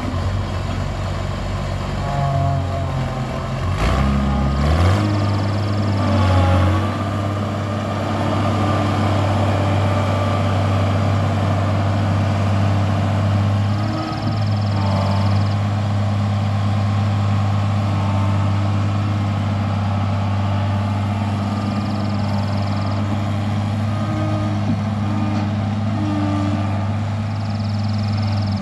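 Case IH 1640 Axial Flow combine's diesel engine running; about four seconds in it revs up, then holds a steady, higher hum as the combine drives off.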